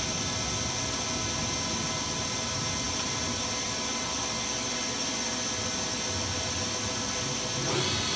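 Cincinnati Milacron Arrow 1250 vertical machining center's spindle running at a steady set speed of some thousands of RPM, a constant machine whine with a high tone over it.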